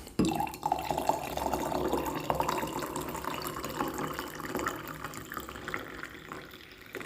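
Boiling water poured into a glass, a steady splashing pour. It starts suddenly just after the beginning, tapers off gradually and stops about six and a half seconds in.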